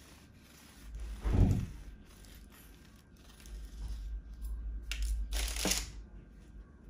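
Serrated bread knife sawing through the crust of a baked sweet bun topped with pearl sugar, giving a crackly crunching about five seconds in. A thump about a second in.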